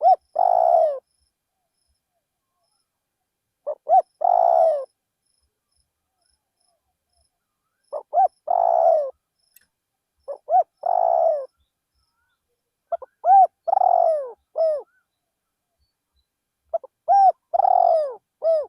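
Spotted dove cooing: six call phrases a few seconds apart, each two or three short clipped notes followed by a longer coo that falls in pitch.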